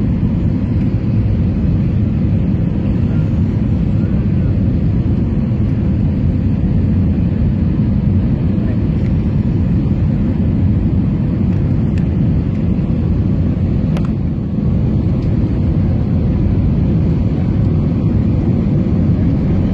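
Steady low rumble of a jet airliner's engines and rushing air, heard inside the passenger cabin on final approach to landing.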